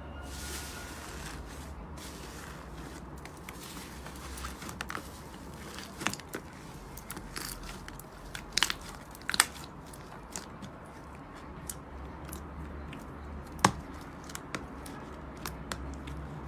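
Slime being handled: scattered small crackles and clicks, with a few sharper pops about six, eight and a half, nine and a half and thirteen and a half seconds in.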